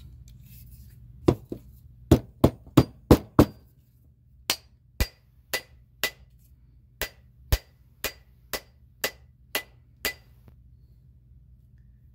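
Rubber mallet blows driving an old Stanley half hatchet's steel head down onto its new hardwood handle. A single blow, then a quick run of five, then about a dozen evenly spaced blows at roughly two a second, the later ones with a light ring.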